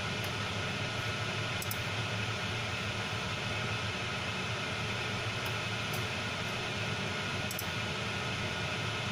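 Steady, even hiss of room noise with a low hum underneath, like a fan running, and a few faint ticks.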